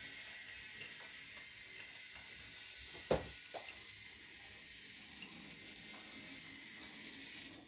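Faint steady hiss with two sharp clicks about half a second apart, a little past the middle; the first click is the louder.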